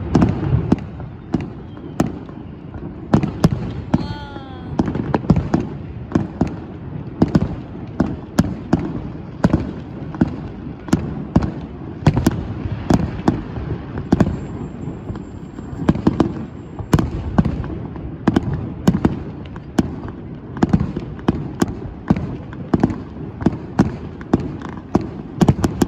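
Fireworks bursting in quick, irregular succession, dozens of sharp bangs over a continuous low rumble.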